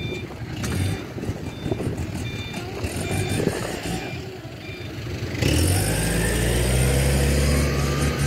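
A reversing alarm beeping about twice a second for the first four seconds. About five seconds in, a heavy vehicle's engine comes up to a loud, steady low drone, over general street noise.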